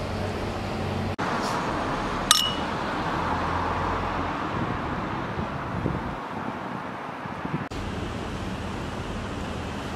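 Two drinking glasses clinked together once in a toast about two seconds in, a short bright ring, over steady background noise.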